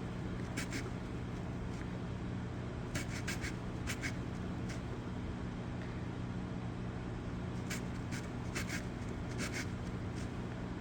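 Roxon folding hand saw cutting through a stick of dry crate wood: short scraping saw strokes in small groups with pauses between, over a steady low hum.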